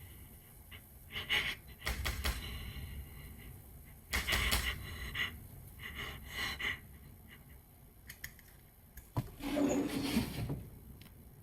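Irregular heavy thumps and knocks, as of banging on a door, mixed with short breathy gasps. Near the end comes a sharp click, then a short low voiced sound.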